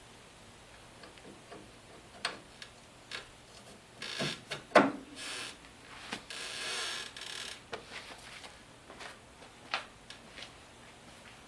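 Scattered clicks and knocks of hand tools and parts during work on the vehicle's front axle, with one loud clank about five seconds in and two short stretches of scraping noise.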